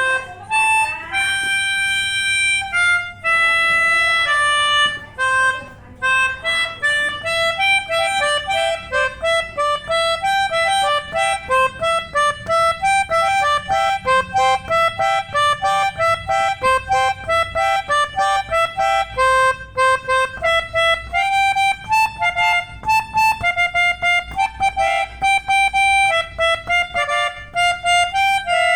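Pianika (melodica) blown by air from a balloon, playing a telolet bus-horn melody in the Basuri style. A few longer held notes open the tune, then a quick run of short, separate notes follows, stopping near the end.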